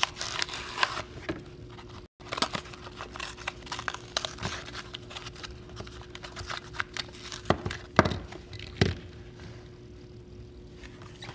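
A Hot Wheels blister card, cardboard backing and clear plastic bubble, being torn open and crinkled by hand. It gives a run of irregular crackles, with a few louder sharp snaps about seven and a half to nine seconds in, over a faint steady hum.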